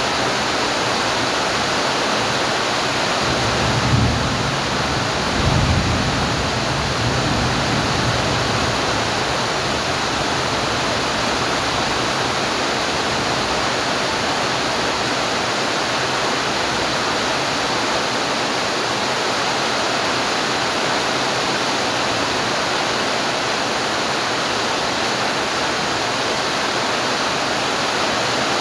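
Steady hiss of heavy rain, with two brief low rumbles about four and six seconds in.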